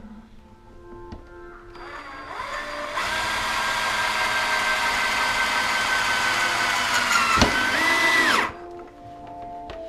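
Gas soldering torch burning with a loud, steady hiss for about seven seconds, then shut off abruptly, over background music.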